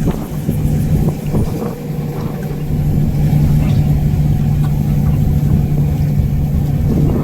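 A car's engine running with a steady low hum, getting a little louder about three seconds in.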